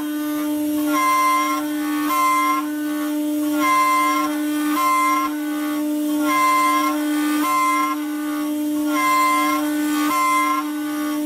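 5-axis CNC router spindle running with a steady high whine while its bit drills sideways into a block on the rotary table. A higher squeal comes back in pairs about every three seconds as the cut repeats, which fits a peck-drilling cycle.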